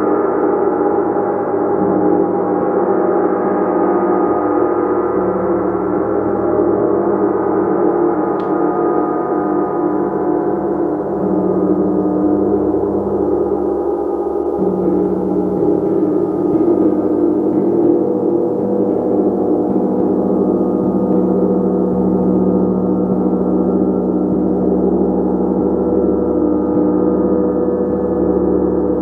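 A gong played continuously, its many overtones blending into a steady, dense shimmering drone that swells and shifts without pause.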